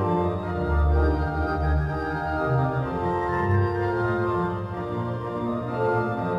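Pipe organ music: full sustained chords over a bass line that moves from note to note.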